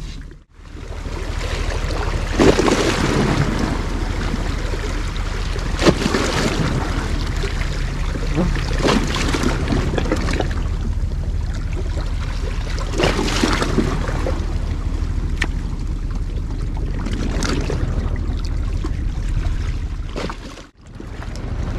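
Small sea waves lapping against breakwater rocks, swelling every three to four seconds over steady wind noise and a low hum. The sound drops out briefly near the start and again near the end.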